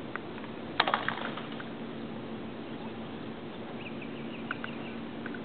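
A short clatter of sharp knocks about a second in, from the crew loading the Civil War field cannon, not the shot itself. Near the end a bird chirps in a quick run of notes.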